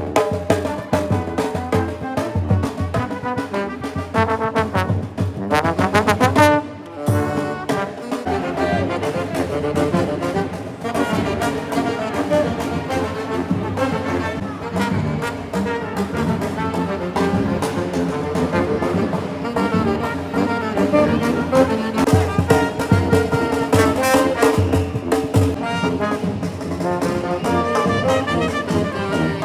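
Carnival street band playing, trombones and trumpets carrying the tune over drums, with a brief drop about six and a half seconds in.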